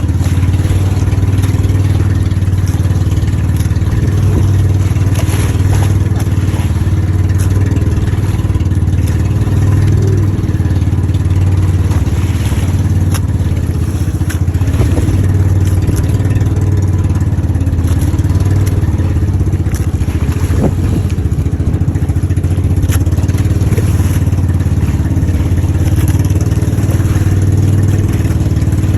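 Steady engine drone and road noise of a moving vehicle, with a few light clatters.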